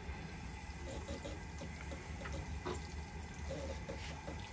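Crappie deep-frying in hot oil in a cast-iron skillet: a steady sizzle with scattered small crackles and pops.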